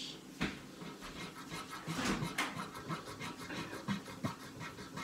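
Scratch-off lottery ticket being scratched: quick, repeated scraping strokes across the card's coating, with one sharper stroke about half a second in.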